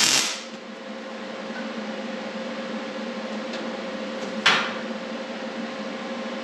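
Steady hum with two sharp knocks of something hard: one right at the start, the second about four and a half seconds in.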